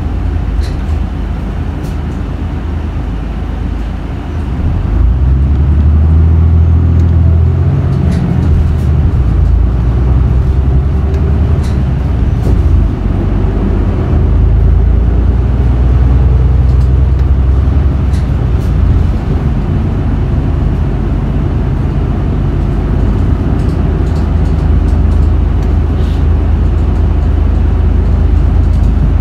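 Isuzu Erga route bus's engine heard from inside the passenger cabin, growing louder about four seconds in as the bus accelerates, its pitch climbing and stepping before it settles into a steady run.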